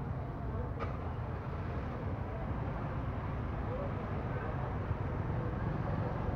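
Outdoor street ambience: a steady low rumble of passing traffic with faint distant voices, and a single light click just under a second in.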